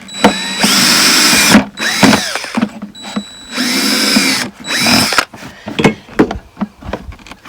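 Nylon zip tie pulled through its ratchet head in three quick zipping rasps whose pitch bends with the speed of the pull, then a few light clicks as it is handled.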